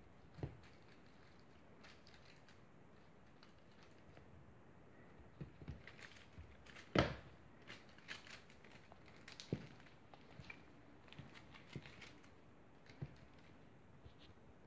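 A Bengal kitten's paws tapping and thumping on a wooden floor as it pounces and leaps at a feather wand toy: scattered soft knocks, the loudest about seven seconds in.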